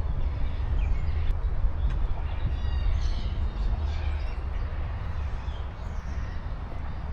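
Several birds chirping and calling in short scattered notes over a steady low rumble on the microphone.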